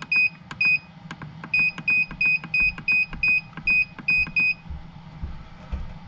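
A BN-LINK digital temperature controller beeps at each press of its button, about ten short, identical high beeps at roughly three a second with a brief pause about a second in. Each beep comes with a faint button click and marks the set point stepping down one tenth of a degree. The beeps stop about four and a half seconds in.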